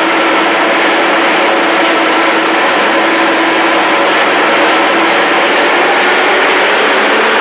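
IFA truck's diesel engine running steadily in direct gear during a fuel-consumption measurement, a loud even drone with no change in pitch.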